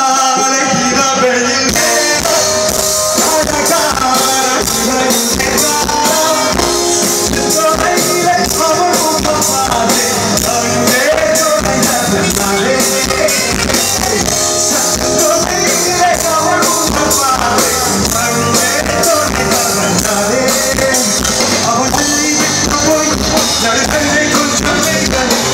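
Live band playing a song with a male singer singing into a microphone. The voice starts almost alone, and the drums and full band come in with a steady beat just under two seconds in.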